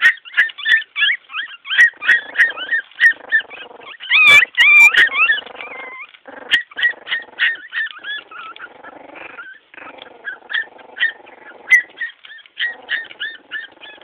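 Several young Chiweenie and miniature pinscher puppies crying together in short, high-pitched calls, several a second and overlapping, with a louder, higher run of cries about four seconds in.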